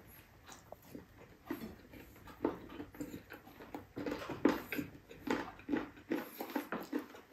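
A person chewing soft braised pork rib meat and rice with the mouth closed: soft, wet mouth sounds coming unevenly, about one or two a second.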